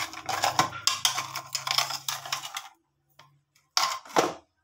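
Quick run of small clicks and taps, a spoon knocking against a spice container while scooping salt, stopping after about two and a half seconds, then two short noisy strokes near the end.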